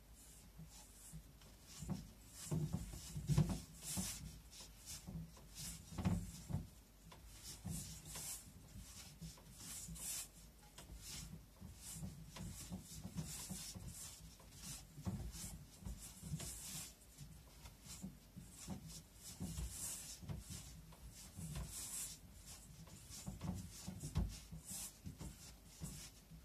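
Hand mixing and kneading a floury, shaggy bread dough in a stainless steel bowl: irregular rubbing and scraping strokes with soft low thumps.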